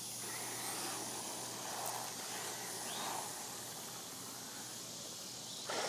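Steady faint hiss of outdoor background noise, with a few soft indistinct sounds and no clear motor whine.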